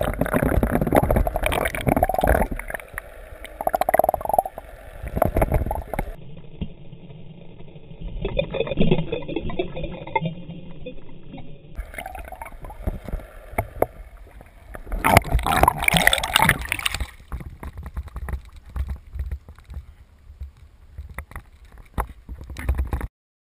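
Sea water gurgling and sloshing around a camera held underwater, with a louder splashing stretch about fifteen seconds in.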